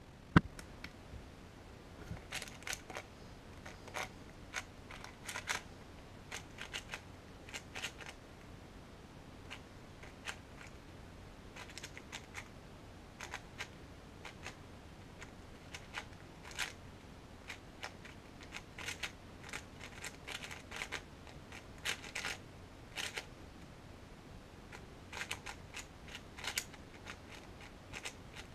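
Qiyi MS 4x4 speedcube being turned fast by hand: quick runs of clicking and clacking layer turns with short pauses between them, during a timed solve. A single sharp knock comes just before the turning starts.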